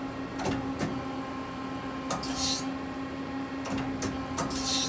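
Mori Seiki ZL-35 CNC lathe under power: a steady machine hum with several sharp clicks and two short hissing bursts, about two seconds in and near the end.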